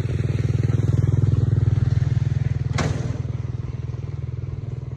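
A small engine running with a fast, even beat, slowly fading after the first couple of seconds. A single sharp click about three seconds in.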